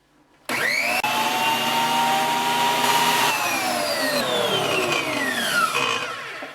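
6-inch jointer with a helical (spiral) cutterhead switched on, its motor whine rising quickly as it spins up about half a second in. It runs steadily for about three seconds, then is switched off and winds down, the whine falling steadily in pitch as it coasts to a stop.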